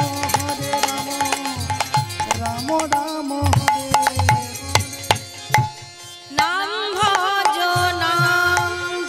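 Bengali kirtan music: steady hand-drum beats and sharp clashes of small brass hand cymbals under a held melody line. A little after halfway the music briefly thins, then a rising, gliding melodic line comes in.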